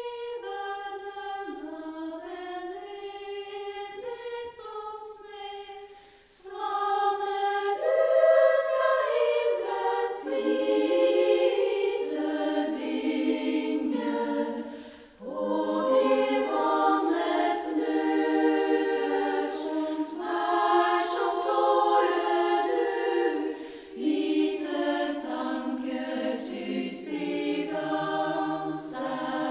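Women's choir singing in long, many-voiced phrases. The singing grows louder after a short break about six seconds in, with further brief breaks about fifteen and twenty-four seconds in.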